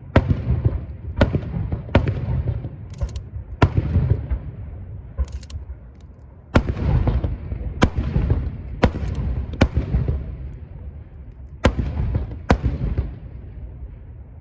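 Star mine fireworks: aerial shells bursting in quick succession, about ten sharp booms, each trailing off in a low echoing rumble, with brief crackling between some of them. The bursts stop a little before the end, leaving only the fading rumble.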